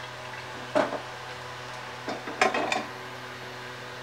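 Wooden spatula scraping and knocking against metal cookware as cooked dal is scraped from a pressure cooker into a pan and stirred, in two short bursts: one about a second in and a longer one past the two-second mark. A steady low hum runs underneath.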